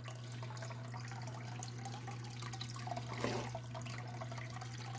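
Water running and trickling through a recirculating prospecting setup processing classified gravel, over a steady low hum. A slightly louder splash comes about three seconds in.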